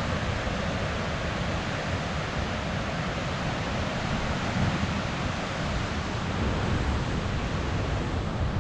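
Steady rush of ocean surf mixed with wind buffeting the microphone, a constant low rumble under a broad hiss.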